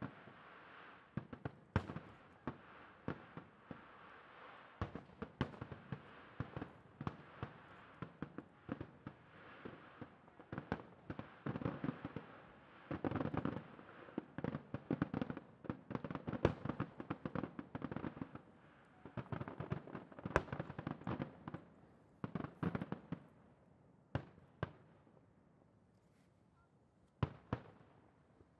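Fireworks display: a rapid run of shell bursts and bangs over dense crackling, thinning to a few separate bangs near the end.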